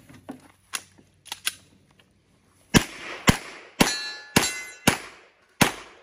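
A competition pistol firing six shots in quick succession, about half a second apart, after a few faint handling clicks. Several shots are followed by the ringing of steel popper targets being hit.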